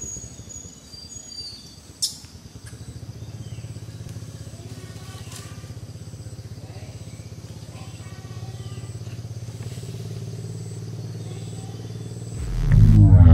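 A low, steady engine hum with a fine regular pulse, like a small motor running, with faint bird chirps early on and one sharp click about two seconds in. Loud music with a sweeping whoosh comes in near the end.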